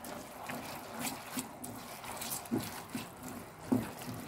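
A spatula stirring and tossing sauce-coated spaghetti in a pan: wet squelching and light scraping in irregular strokes, the loudest about two and a half and nearly four seconds in.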